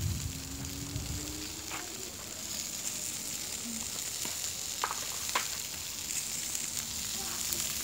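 Sausages sizzling on a charcoal grill: a steady hiss with a few faint pops, and a low rumble in the first second.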